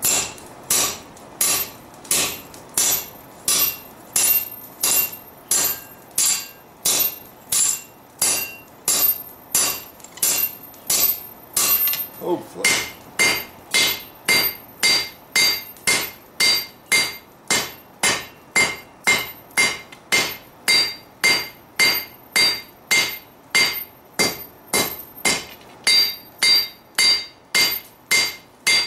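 Hand hammer striking red-hot steel on an anvil in a steady rhythm of about two blows a second, drawing out a sword blade. For the first dozen or so seconds the bar is worked in a spring top-and-bottom fuller. After that the blows land directly on the anvil face and each one rings with a clear tone.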